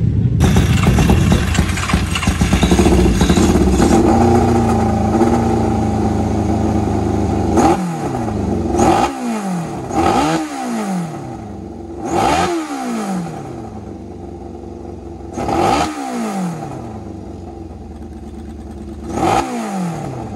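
Yamaha engine of a 1000cc grasstrack sidecar outfit running, then blipped by hand about six times from around eight seconds in, each rev rising sharply and dying back toward idle. It is being run and revved while the team checks it for a suspected overheating problem.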